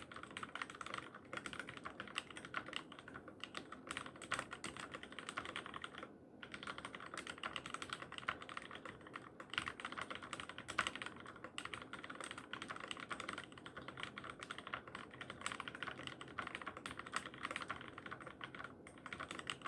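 Continuous fast typing on a Keychron K6 mechanical keyboard with lubed, filmed Cherry MX Black linear switches: a dense run of muted keystroke clacks, with a brief pause about six seconds in.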